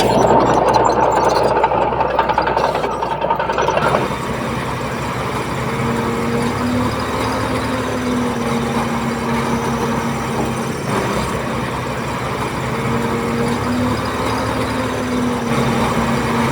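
Heavy diesel engine of earthmoving machinery running. It is loud and harsh for the first four seconds, then changes abruptly to a steadier drone whose pitch wavers slightly.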